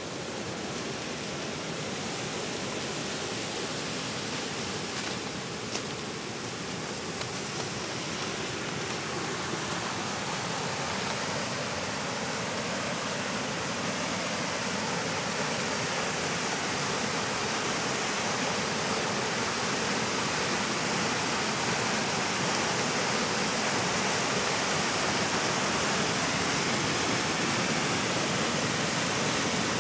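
Whitewater of a mountain river in spring, rushing over rocks: a steady noise of running water that grows gradually louder.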